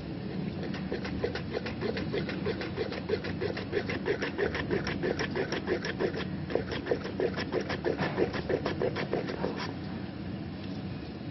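Kitchen knife slicing quickly through a tomato onto a wooden cutting board: a fast, even run of knocks about five or six a second, with a short break about six seconds in, stopping near the end.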